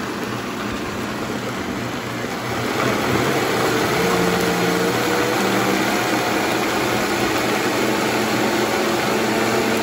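Vitamix high-speed blender running, blending oats and liquid into pancake batter; it gets louder about three seconds in as the speed dial is turned up.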